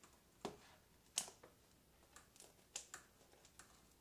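Kitchen scissors cutting through a baked pizza: a string of short, sharp snips at irregular spacing, the loudest about a second in.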